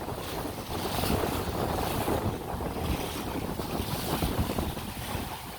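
Strong wind buffeting the microphone, rising and falling in gusts, over the wash of a rough sea.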